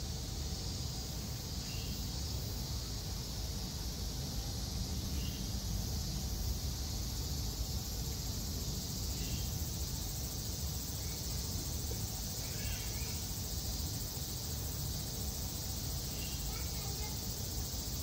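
Steady outdoor ambience: an even high hiss over a low rumble. Faint, brief distant voices come every few seconds.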